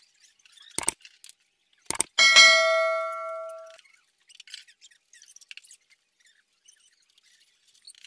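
Metal clicks while parts are handled, then a single metallic clang about two seconds in that rings and fades away over about a second and a half, followed by faint small rattles.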